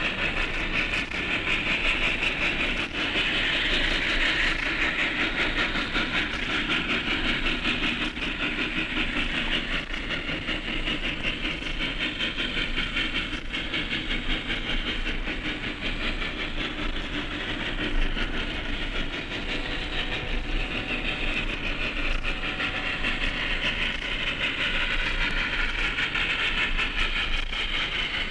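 Steam locomotive running steadily, a dense, fast rhythm of exhaust and wheels on rail with a hiss of steam, holding at an even level throughout.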